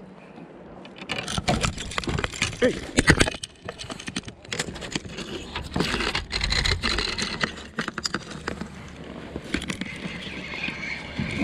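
Spinning reel's drag clicking as a fish strikes the trolled lure and takes line. Mixed in are sharp knocks and rattles from the rod and reel being grabbed and handled, starting about a second in.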